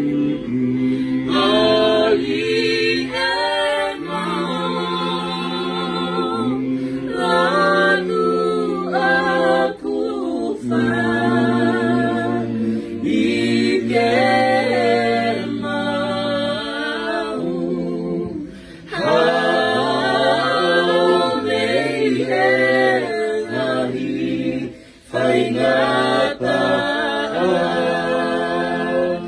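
A small mixed group of men and women singing a hymn in Tongan, unaccompanied and in harmony, with long held notes and vibrato. The singing breaks off briefly for breaths about two-thirds of the way through and again a few seconds later.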